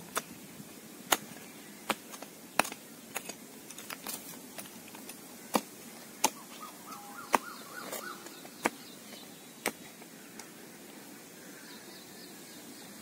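A small hand hoe chopping into dry, stony soil: sharp knocks of the blade against earth and stones, roughly one a second, stopping about ten seconds in.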